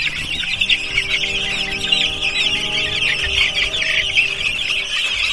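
A brood of wet, chilled young chicks peeping nonstop, many high chirps overlapping, with a steady low hum underneath.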